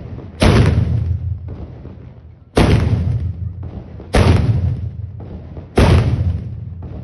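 Pontianak carbide cannons (meriam karbit) firing four times in quick succession. The blasts come about one and a half to two seconds apart, each a sudden boom with a long, fading rumble.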